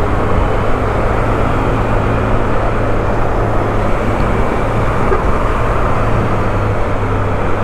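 Motorcycle engine running steadily while riding, under a continuous rush of wind and road noise.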